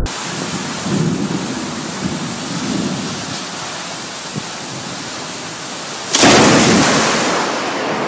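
Heavy rain pouring in a thunderstorm, a steady hiss, with a sudden loud clap of thunder about six seconds in that fades over a second or two.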